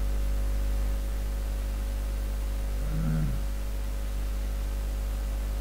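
Steady electrical mains hum, a low buzz with a ladder of even overtones, carried on the microphone signal. A short murmur of a man's voice about three seconds in.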